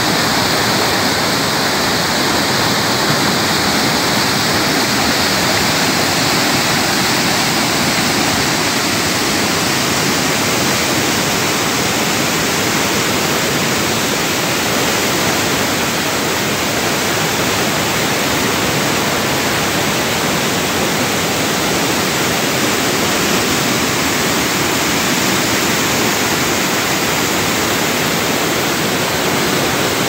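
Waterfall: river water cascading down a steep rock slab into a pool, a loud, steady rushing of white water.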